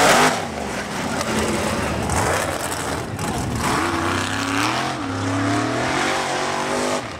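Off-road race buggy's engine running hard, revving up and down several times as it drives a dirt course; loudest near the start.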